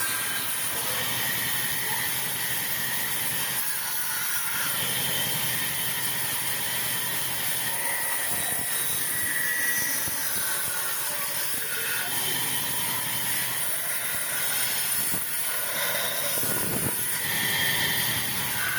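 Sawmill saw cutting through a log: a steady hiss with faint high whining tones that shift in pitch.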